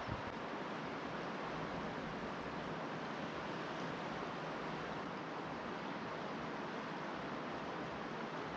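Steady rushing of flowing river water, an even hiss with no breaks or single events.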